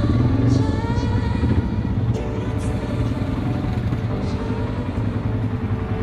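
An engine running steadily with a low rumble.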